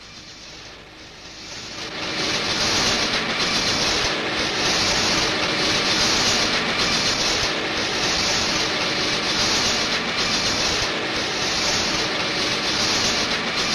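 Column-mounted electric rock drill boring into a bituminous shale face: a loud, steady grinding noise that swells in over the first two seconds and pulses in a regular rhythm.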